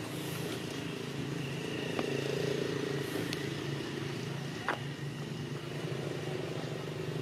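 A motor engine running steadily nearby, a low, even hum, with a few sharp clicks.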